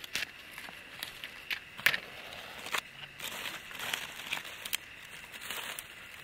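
Dry kindling twigs crackling and snapping in irregular sharp clicks over a low rustle, the loudest snap about two seconds in.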